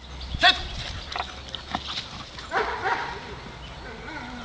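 A dog barking a few times in the first three seconds, mixed with a man's short called commands.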